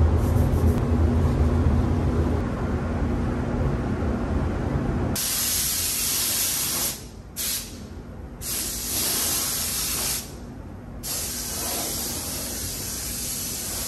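Compressed air hissing from a handheld air nozzle on a shop air hose, in several blasts with short pauses starting about five seconds in, blowing dust off a car's panels before painting. Under it, a low steady rumble.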